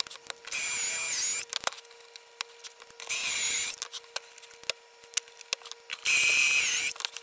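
Cordless drill boring pocket holes into plywood through a Kreg pocket-hole jig, in three short high-pitched bursts about two and a half seconds apart, each dipping in pitch as the drill winds down. Light knocks and taps between the bursts.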